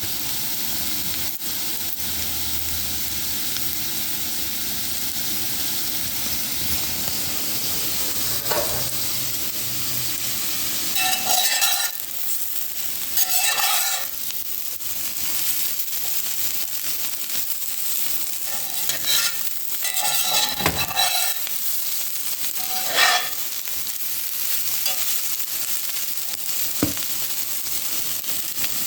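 Home fries (diced potatoes) sizzling steadily in a frying pan, stirred several times, with the utensil scraping the pan in short, louder bursts around the middle.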